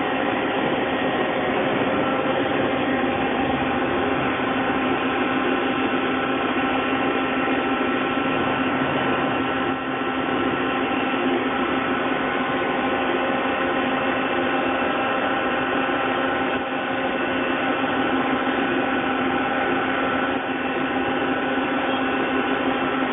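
Mori Seiki CNC lathe running: a steady mechanical hum with several held whining tones over it, unchanging in level.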